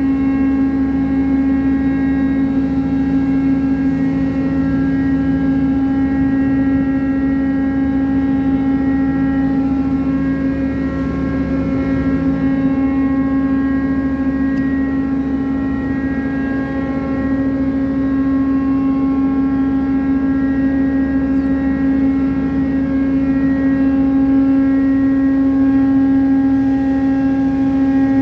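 Ship's cargo crane machinery running as it works a clamshell grab in a wheat hold: a loud, steady mechanical drone with a strong low hum and fainter higher tones that fade out and come back.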